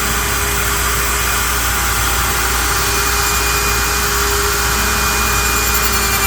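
Router on a CNC lathe running steadily as it machines a curly maple butt sleeve, with a shop vacuum running alongside: a loud, even rush with a steady high whine.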